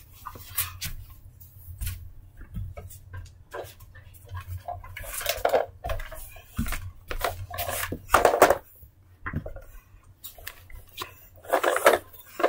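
Intermittent clicks, knocks and rustles of toys being handled by hand, denser in short clusters around the middle and near the end.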